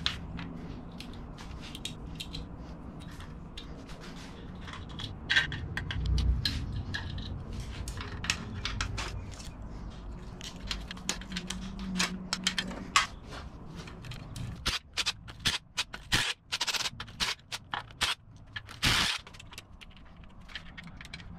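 Metal hand tools clicking and scraping against an air-cooled Volkswagen engine case during teardown. The sharp clicks come irregularly and grow thicker in the second half, with a dull thud about six seconds in.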